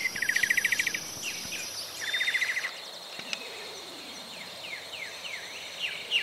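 Birds calling with short, repeated downward-sweeping chirps, and two fast buzzing trills, one at the start and one about two seconds in, over a steady high insect drone.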